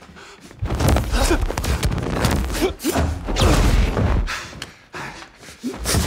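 Sound effects from a film knife fight between fighters wearing personal energy shields: electronic clicking and glitching of the shields, thuds and knocks of blows and scuffles, and the fighters' gasps and grunts.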